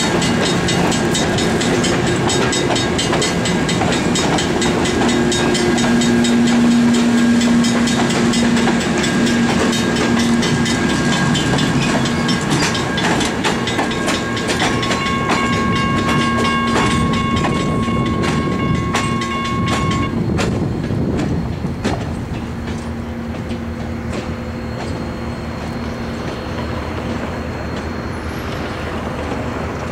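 Passenger train cars rolling past on jointed rail, the wheels clicking over the rail joints. A high steady squeal sounds for several seconds past the middle and stops suddenly. The rolling then fades to a lower steady noise as the last car pulls away.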